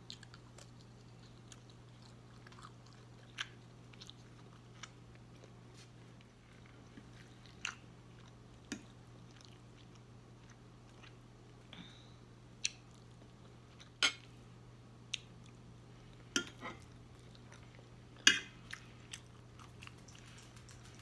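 Close-miked chewing of scrambled eggs and sausage, broken by about a dozen scattered sharp clicks and smacks, the loudest near the end. A faint steady low hum runs underneath.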